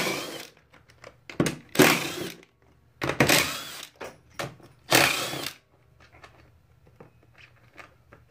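Power driver spinning out the 10 mm bolts that hold the ATV airbox, in about five short bursts during the first six seconds.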